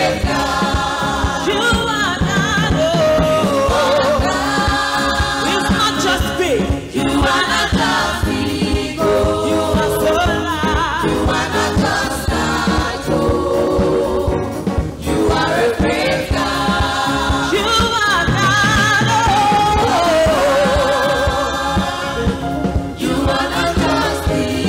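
Live gospel praise singing: a woman leads into a microphone with a group of backing singers joining her, over a band with a steady beat.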